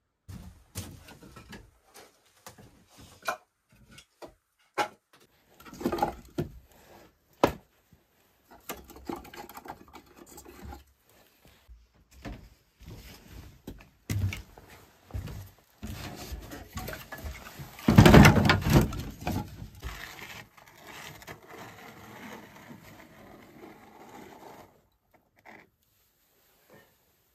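Scattered clicks and knocks, then metal-on-brick scraping as the cast-iron firebox door of a brick stove is opened and the firebox is cleared of ash. The loudest scraping comes about two-thirds of the way in.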